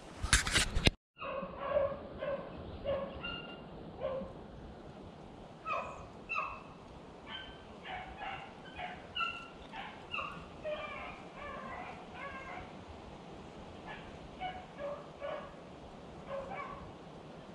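Beagles baying on a rabbit's scent trail: short, fairly faint bays at irregular intervals, dozens in all. A loud burst of noise fills the first second before the baying.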